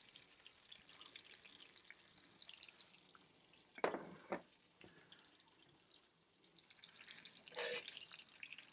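Butter melting in a cast iron skillet with diced onions in it, faintly sizzling and spitting. Two sharp clicks come about four seconds in, and near the end metal tongs clatter against the pan as they go in to stir.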